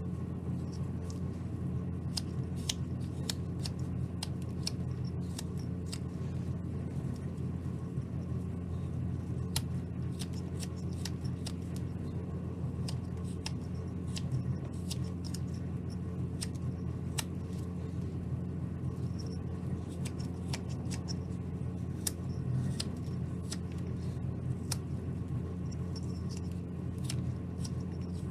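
Carving knife slicing small shavings from a basswood block: short, crisp, irregular cuts, several close together at times, over a steady low hum.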